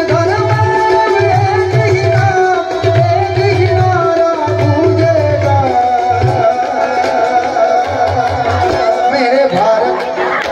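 Live Gujarati folk music: a singer holding long, gliding notes over sustained instrument tones and a hand-drum beat. The drum drops out near the end.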